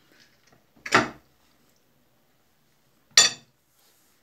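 A metal teaspoon knocking against a bowl twice, once about a second in and again about three seconds in.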